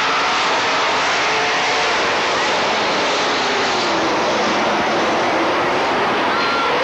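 Several race cars' engines running hard around the track: a dense, steady engine noise with pitches that slide up and down as the cars pass.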